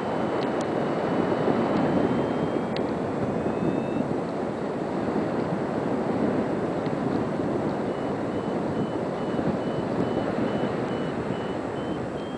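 Airflow rushing over the camera microphone of a paraglider in flight: a steady, heavy wind noise. A faint high tone sounds in the first third, and a faint high beeping runs through the last third.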